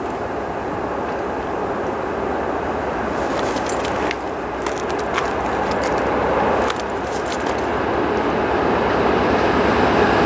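CP and ICE diesel freight locomotives approaching at the head of a tank-car train, their engines running steadily and growing louder as they near. A scatter of sharp clicks comes from about three to seven seconds in.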